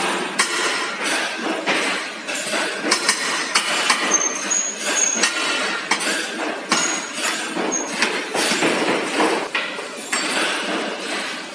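Factory-floor noise: frequent clinks and knocks of metal parts over a steady machinery din, with a few short high whistling tones in the middle.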